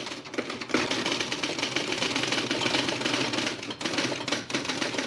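Dense, rapid typewriter-like clattering of many fast overlapping ticks, an added sound effect with a brief dip near the middle.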